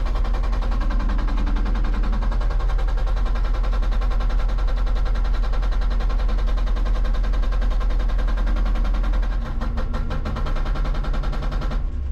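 Hydraulic rock breaker on a Hitachi 160 excavator pounding rock in rapid, continuous blows over the excavator's diesel engine working under load. The hammering changes about three-quarters of the way through and stops near the end.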